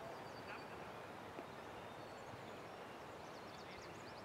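Faint, steady outdoor background noise with a few faint bird chirps, including a quick run of high chirps near the end.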